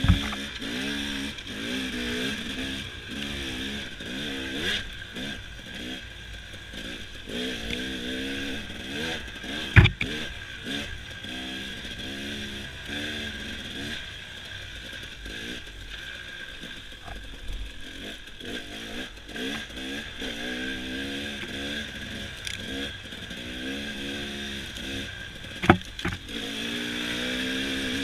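Dirt bike engine running on a rough trail, its note rising and falling again and again as the throttle is worked. There are three sharp knocks: right at the start, about ten seconds in, and near the end.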